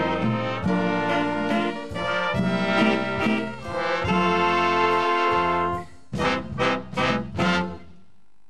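A big band with brass and saxophones plays the instrumental close of a Thai popular song. About six seconds in, the held chords give way to four short, punched chords, and then the music stops.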